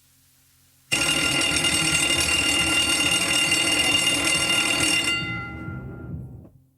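A bell ringing loudly and steadily: it starts suddenly about a second in, holds for about four seconds, then dies away over about a second and a half.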